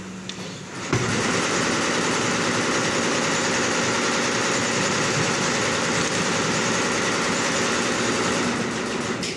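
A loud, steady mechanical rushing noise that starts abruptly about a second in and cuts off suddenly near the end.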